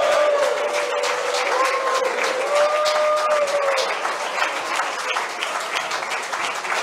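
Audience applauding steadily, with a few long held tones over the clapping for about the first four seconds.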